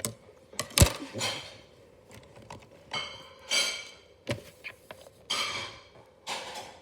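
Scissors and origami paper being handled: a sharp click about a second in, then several short rustling bursts.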